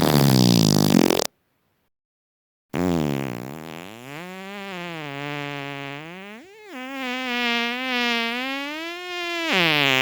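Two farts. First a short, louder one whose pitch falls. Then, after about a second and a half of silence, a long pitched fart of about seven seconds that wavers up and down, with a quick jump up in pitch and back down midway.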